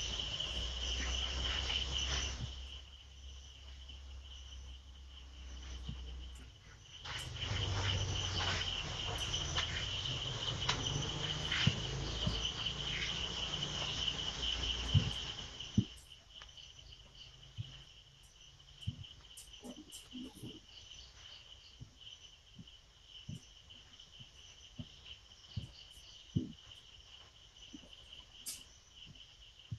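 Crickets chirping steadily in a continuous high trill. A louder rushing noise with a low rumble runs under them at the start and again for several seconds in the middle, and small scattered clicks follow in the second half.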